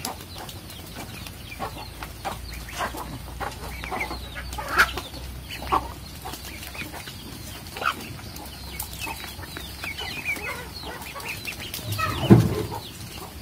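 A hen clucking among a flock of ducklings that peep and chatter as they feed, short scattered calls all through. A louder low sound stands out near the end.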